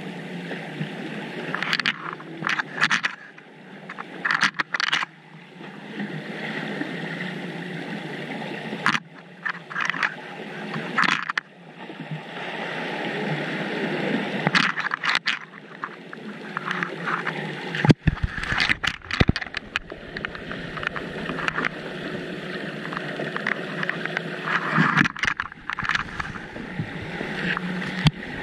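Muffled water noise picked up by an underwater camera, with irregular bursts of gurgling and knocking every few seconds and a deeper rumble in the second half.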